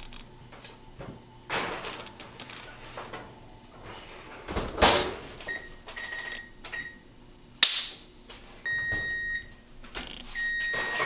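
Baking tray and oven door being handled, with rustles and a sharp click about halfway through. Then the oven's control panel beeps several times in the second half, the last beeps long and steady.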